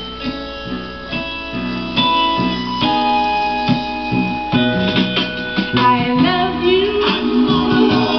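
A soul 45 playing through a vintage console stereo record player: music with sustained keyboard chords, and a singing voice wavering in about six seconds in.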